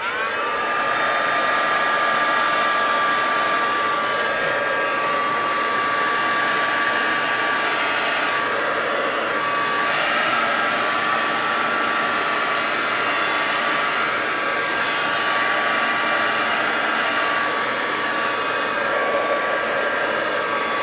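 Handheld electric heat gun switched on, spinning up at the start and then running steadily: its fan makes a rush of air with a steady whine. It is blowing hot air over polystyrene foam pieces.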